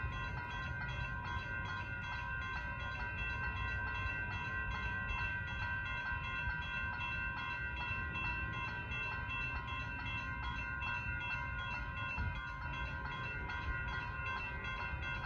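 Railroad crossing bells ringing continuously with a rapid, even beat, their steady high tones over a low rumble.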